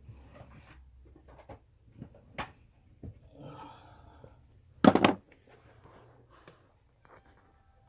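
Handling noises from someone fetching a tool off-camera: scattered clicks and knocks, a short rustle, and one loud clatter about five seconds in.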